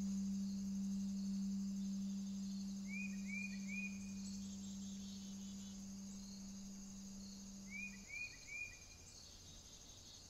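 Soft ambient background track: a long low held note fading slowly and ending about eight seconds in, over a steady high insect-like chirring. Two short runs of three bird-like chirps come, one about three seconds in and one near the end.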